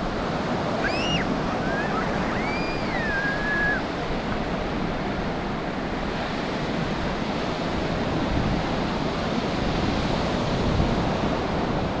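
Sea surf washing steadily onto a sandy beach as small waves break and run up the sand. In the first few seconds two faint whistle-like calls rise and fall over it.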